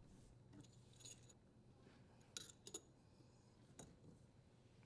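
Near silence with a handful of faint, sharp metallic clicks spread across a few seconds.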